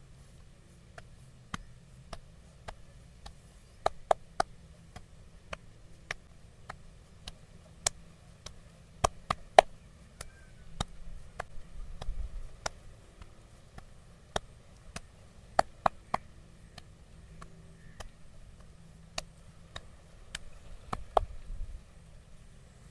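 Sharp clicks and knocks from a barber's stick and hand massage, scattered irregularly, some in quick pairs. The loudest come about four, nine to ten, and sixteen seconds in.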